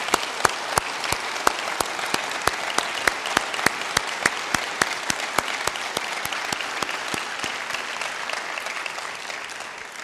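A congregation applauding, with one close pair of hands clapping steadily about three times a second over the general clapping. The applause dies away near the end.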